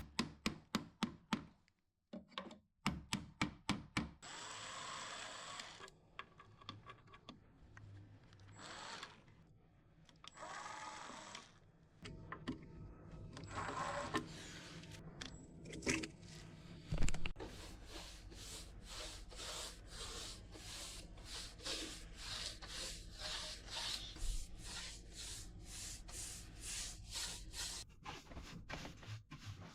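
Workshop sounds of stained rods being refitted to an oak cabinet: many sharp wooden knocks and clicks, with several short bursts of a small power tool.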